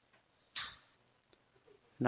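Near silence: faint room tone with one brief, soft hiss about half a second in.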